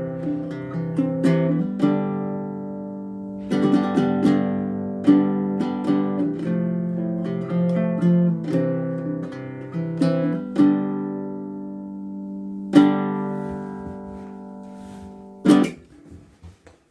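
Short-scale (19-inch) Bruko baritone ukulele strung with Perry's low-octave GCEA strings, tuned a full octave below standard ukulele pitch, being played in chords and single notes. The strings are so low-tension that the player finds the tone wrong and the instrument hard to play. A last chord rings out about 13 seconds in, and a brief final strum is damped near the end.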